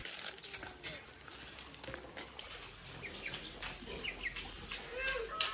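A knife knocking irregularly on a small cutting board as raw meat is cut, with birds chirping in the background.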